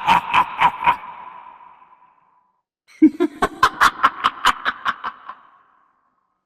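A girl's evil 'demon' laugh sound effect: quick staccato 'ha-ha-ha' pulses, about five a second, with an echo trailing off after each run. One laugh ends about a second in, and a second laugh starts about three seconds in and fades out before the end.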